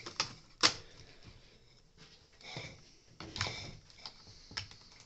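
Hard plastic clicks and knocks from a Dyson soft roller cleaner head being handled and its parts pressed into place: a handful of sharp separate clicks, the loudest about half a second in, with a short rattling group a little after three seconds.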